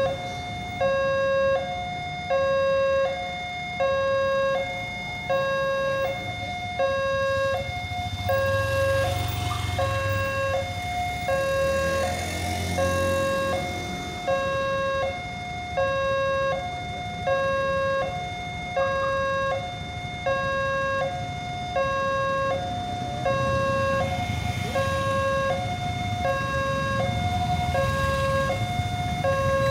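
Railway level-crossing warning alarm sounding continuously, an electronic signal alternating between a lower and a higher tone in a steady repeating pattern. It warns that a train is approaching and the barriers are down. A low engine rumble from waiting traffic swells in the middle.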